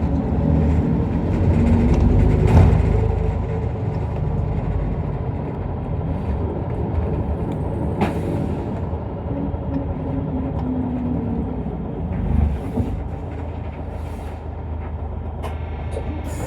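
Interior of an Isuzu Erga Mio one-step city bus under way: diesel engine running with road and body noise, louder for a moment about two seconds in.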